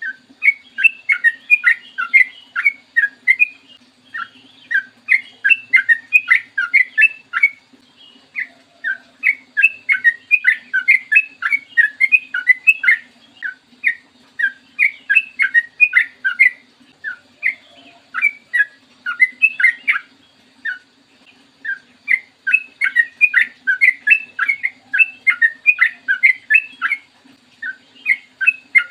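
Yellow-vented bulbul (trucukan) singing long runs of quick, bubbly notes, about four a second, in phrases several seconds long separated by short pauses. A faint steady hum runs underneath.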